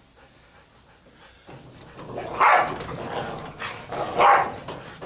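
A dog barking twice, two loud short barks nearly two seconds apart.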